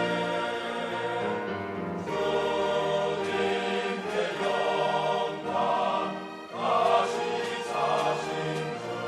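Church choir singing in sustained harmony, dipping briefly just past halfway and then swelling to its loudest.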